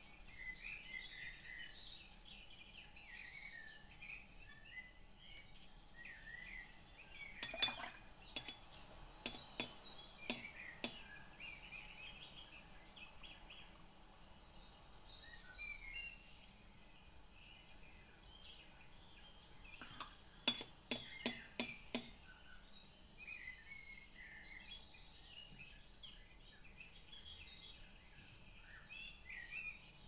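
Faint bird chirps and song in the background. Over them come two short runs of light, hard clinks, about eight seconds in and again about twenty seconds in.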